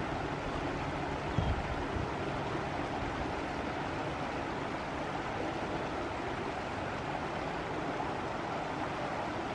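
Shallow stream running over stones, a steady rushing of water, with a brief low thump about a second and a half in.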